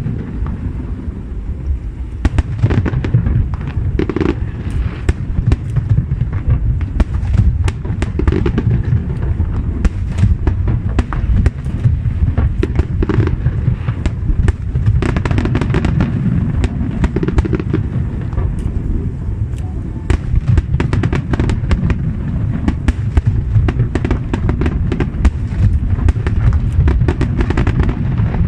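Aerial fireworks going off continuously: a dense, steady rumble of booms with many sharp cracks and crackles on top.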